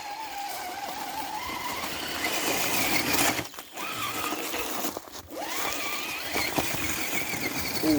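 Electric motor and gear train of a radio-controlled scale crawler whining under throttle. The pitch climbs and falls with the throttle, and it cuts out briefly twice, about three and a half and five seconds in.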